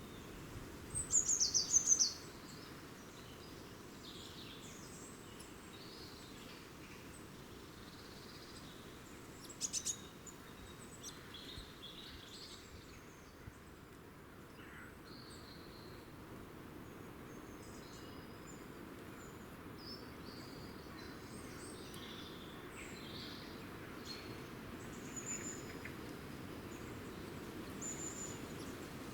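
Birds chirping and calling, many short high notes scattered throughout, with a loud run of falling chirps about a second in and another short burst near ten seconds. A steady low background rumble runs underneath.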